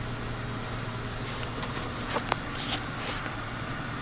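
Steady machine hum and hiss from the running microwave plasma setup, with its vacuum pump and microwave power supply on. Between about one and three seconds in come a few short rustles and clicks of handling, the sharpest a single click a little past two seconds.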